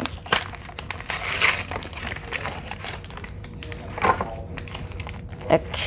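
Foil booster-pack wrapper crinkling and rustling as the cards are worked out of it, with scattered light clicks and taps.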